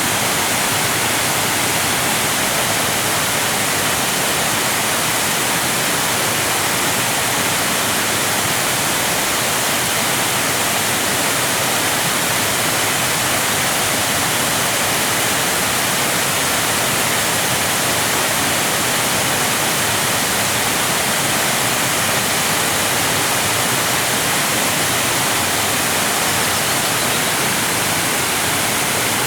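Waterfall: falling water making a loud, steady, unbroken hiss-like rush that stays the same throughout.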